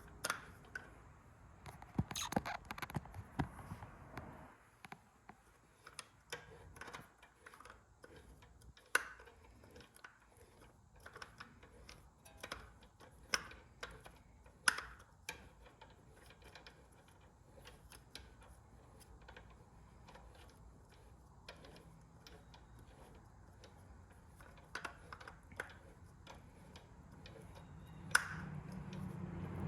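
Scattered light clicks and metallic taps of hand work on a tie rod and its new tie rod end, irregular, with a dense run in the first few seconds and a few sharper knocks later.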